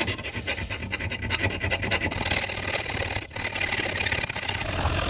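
Round rat-tail file rasping in quick back-and-forth strokes through a hole in an aluminum bracket, wallowing the hole out into an oval, with a brief break about three seconds in.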